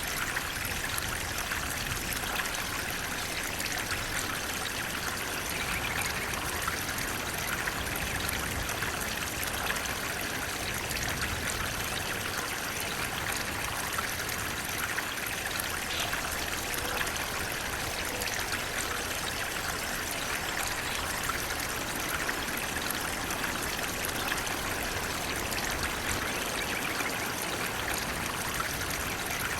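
Flowing water running steadily, an even rushing and trickling that neither rises nor falls.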